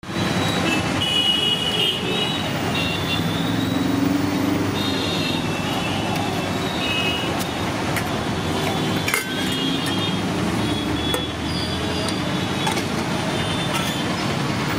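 Steady traffic noise from a busy road, with a few light clicks over it.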